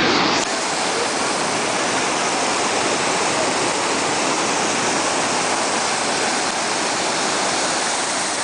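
Floodwater from a swollen river rushing and churning through a collapsed road bridge: a loud, steady roar of torrent water.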